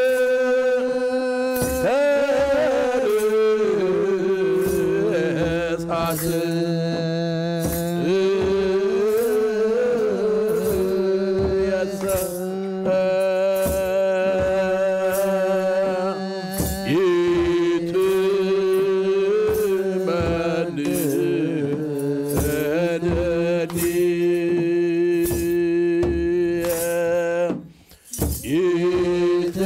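Ethiopian Orthodox wereb: a men's choir chanting a Ge'ez hymn together over a steady beat of kebero drums. The singing breaks off briefly near the end, then resumes.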